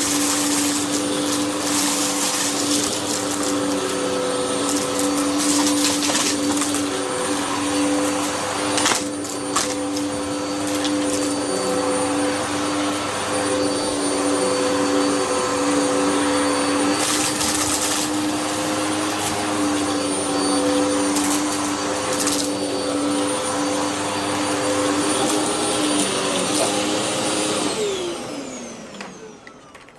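Hoover vacuum cleaner running steadily over a rug, with scattered sharp crunching clicks as debris is sucked up. Near the end the motor is switched off and winds down, its pitch falling as it fades.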